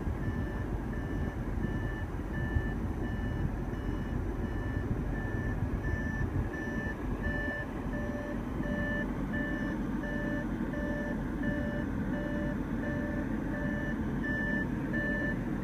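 Audi S7's in-cabin warning chime beeping steadily at about two beeps a second, the alert that goes with the dash's 'Turn off ignition before leaving car' warning, over the low hum of the 4.0-litre twin-turbo V8 idling just after start-up.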